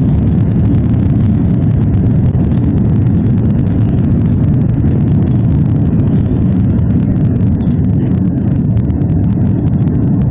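Loud, steady low rumble of an Airbus A330 on its landing rollout, heard from inside the cabin: engine and runway noise as the jet decelerates after touchdown.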